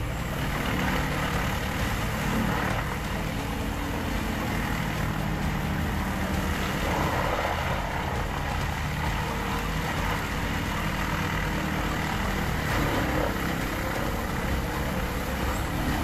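Vermeer WC2500XL whole-tree chipper running under load as it is fed whole trees: a steady, dense engine and chipping noise, with a brighter grinding stretch about seven seconds in.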